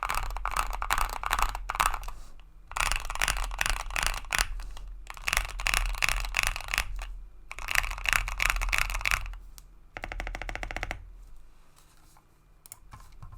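Bakeneko 65 mechanical keyboard with lubed Gazzew Boba LT linear switches, PE foam and a tape mod, typed on fast in four bursts of keystrokes. About ten seconds in comes a rapid, even run of clicks, then only a few scattered keystrokes.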